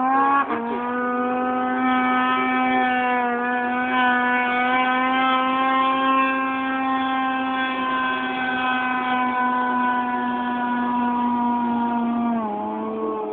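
Snowmobile engine held at high revs in one steady, slightly wavering tone as the machine skips across open water, after a short rise in pitch at the start; about twelve seconds in the pitch drops sharply as the throttle comes off.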